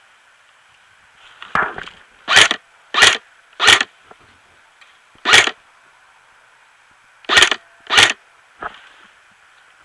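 Airsoft electric gun, an H&K MP5 replica, firing single shots: about eight sharp cracks at uneven spacing, the first and last fainter, the loudest in two clusters of three and two.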